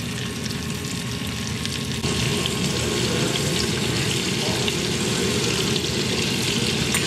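Thin slices of goose breast sizzling as they sear in hot butter and garlic in a frying pan. The sizzle grows a little louder about two seconds in.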